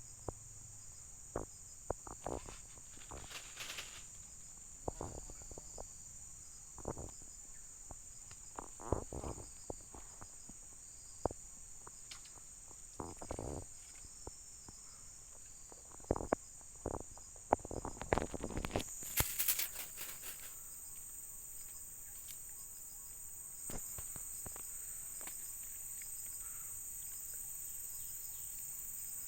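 Steady high-pitched chorus of insects, with scattered short clicks and knocks and a louder rustling patch about nineteen seconds in.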